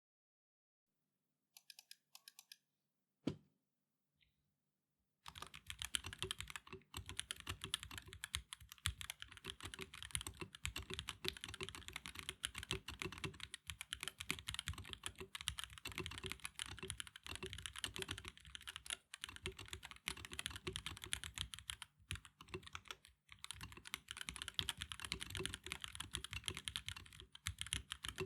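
Epomaker EK68 mechanical keyboard being typed on. A few scattered keystrokes and one louder knock come in the first few seconds, then fast, continuous typing runs on with a few brief pauses.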